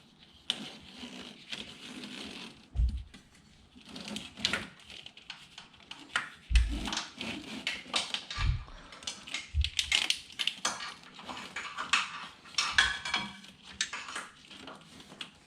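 Hands working with heavy battery cables and their metal terminals: irregular clicks, rattles and rustling, with a few dull thumps.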